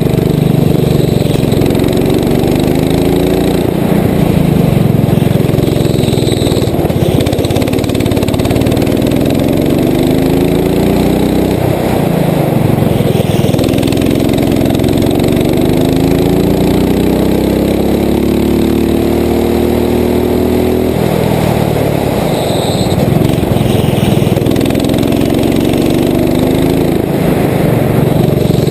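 Rental go-kart engine heard up close from onboard, running hard around a track: its pitch climbs several times as the kart accelerates down the straights and falls back when the driver lifts off for the corners.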